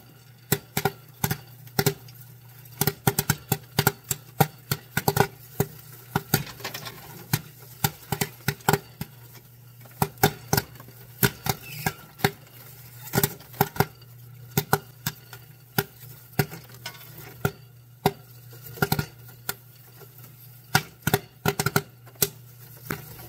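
Popcorn kernels popping in hot oil in a popcorn machine's stainless steel kettle, with irregular sharp pops several a second: the batch is in full pop. A steady low hum runs underneath.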